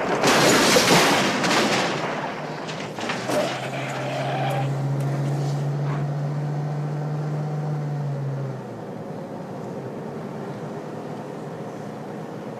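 Ambulance van being driven hard over rough ground, heard from inside the cab. A loud rush of noise fills the first two seconds, with a few sharp knocks around three seconds in. A steady engine drone then holds until about eight and a half seconds, after which it settles to a quieter running noise.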